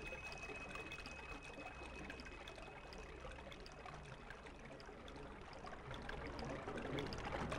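Faint, steady rushing noise, dipping in the middle and rising again near the end.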